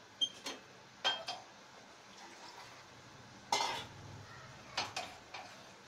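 Metal ladle knocking and scraping against a kadhai while stirring thick masala gravy: a series of separate clinks, some with a short metallic ring, the loudest about three and a half seconds in.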